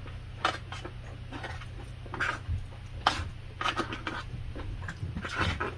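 Close-miked eating sounds: a spoon and fork clicking and scraping in a plastic takeout tray, with wet mouth sounds of chewing, as short, irregular clicks.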